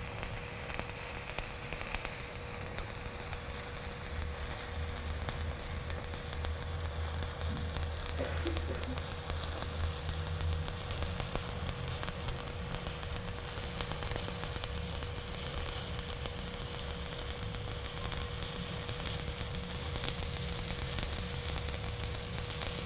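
A stick-welding (SMAW) arc crackling and sizzling steadily as an electrode burns, laying a cap pass on steel pipe.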